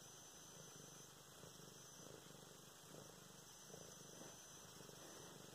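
Domestic cat purring faintly and steadily.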